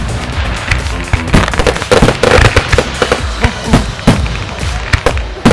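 Fireworks going off: a rapid string of bangs and crackles, several a second, over a low rumble.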